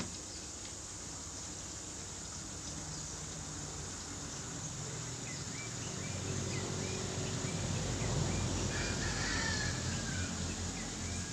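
Birds calling: a run of short repeated chirps about halfway through, then a longer call around eight seconds in. A low hum swells beneath them in the second half.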